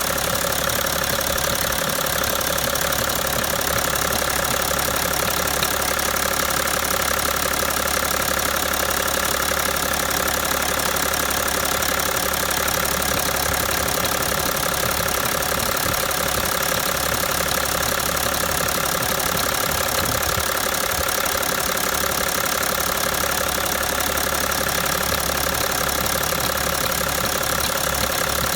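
BMW 730d's straight-six diesel engine idling steadily, with an extraneous noise from its vacuum system running along with it.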